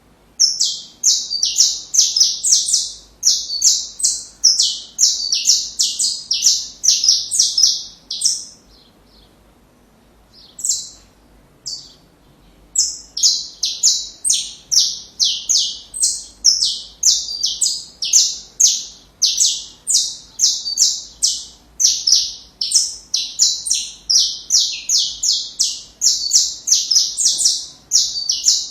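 Saffron finch (canário-da-terra) singing: long runs of quick, high, sharp notes. The song stops for about four seconds after the first third, apart from two short phrases, then starts again.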